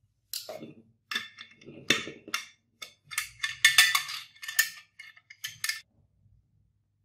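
Metal parts of a handmade airgun's barrel and fitting knocking and clinking together as they are handled and fitted by hand, in a string of irregular clicks and taps.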